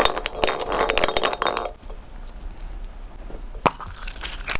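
Draw balls rattling and clicking against each other and a glass bowl as a hand stirs through them, for about the first second and a half. Then a quieter stretch and two sharp clicks as one ball is handled and opened.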